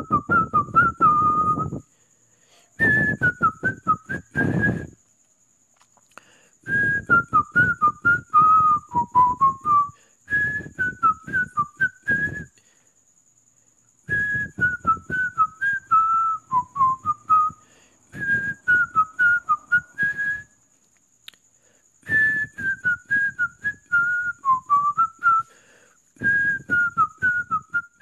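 A person whistling a cheerful tune in short phrases of a few notes, each phrase stepping down in pitch, with brief pauses between phrases.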